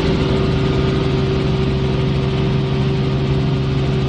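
Helicopter in flight, heard from inside the cabin: a steady engine and rotor drone with a fast, even low throb, unchanging throughout.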